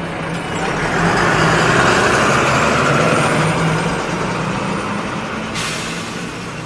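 Bus engine sound effect: a bus running, swelling to its loudest about two seconds in and then slowly fading. A sudden hiss begins near the end.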